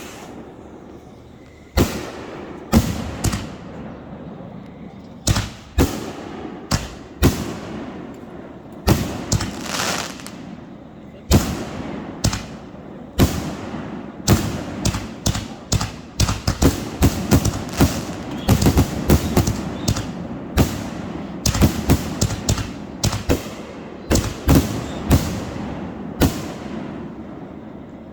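Fireworks exploding in a string of sharp bangs, each trailing off in a rumble. The bangs come a second or two apart at first, then thick and fast through the middle, and thin out near the end.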